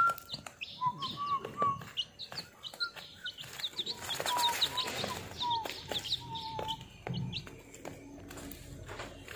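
A brood of week-old chicks peeping: many short, high cheeps that slide downward, mixed with a few lower peeps, and light ticks of beaks pecking at feed crumbles.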